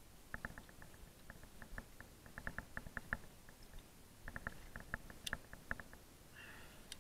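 Faint clusters of quick, light clicks and ticks from climbing gear being handled with gloved hands: ropes and carabiners shifting on a yellow rope device. There is one sharper click about five seconds in.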